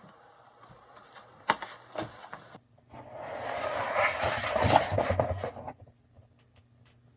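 Handling noise: two sharp clicks, then a few seconds of scraping and rubbing that swells and fades.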